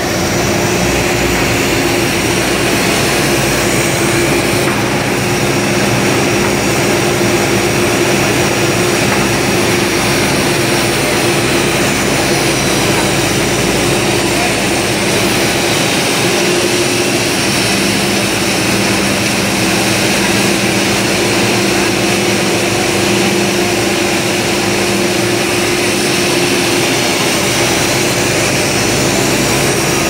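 Aluminium rod continuous casting and rolling line running: a loud, steady mechanical drone with a constant hum and a hiss over it.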